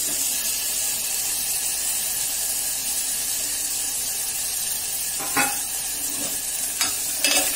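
Vegetables frying in hot oil in an aluminium pressure cooker, a steady sizzle, with a few light clicks near the end.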